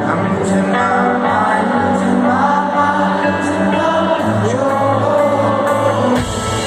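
Indie rock band playing live with sung vocals over sustained guitar and bass, the melody gliding up and down. The sound dips briefly about six seconds in.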